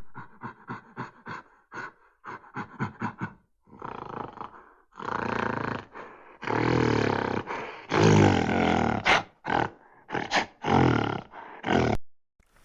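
A large animal calling: a run of short, rhythmic calls, about three a second, builds into a series of long, loud calls from about five seconds in.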